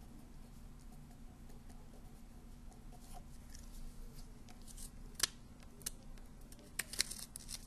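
Felt-tip marker scratching on paper as a few words are written, then a few sharp clicks near the end.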